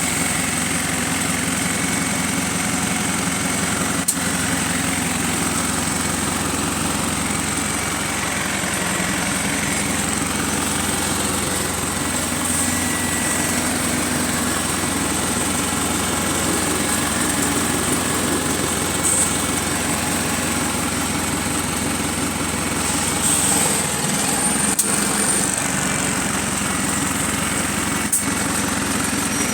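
Diesel engine of a Wright StreetLite single-deck bus running steadily, with a small exhaust leak. The sound is an even, continuous engine drone, a little busier about three quarters of the way through.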